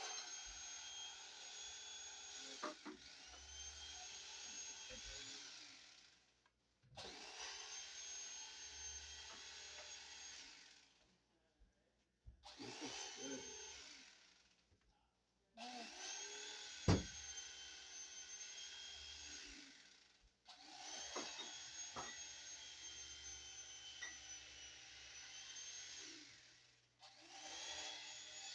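Electric carving knife motor whining steadily as it cuts through a roast turkey, switched off and on about five times so that it runs a few seconds at a time, with one sharp knock about halfway through.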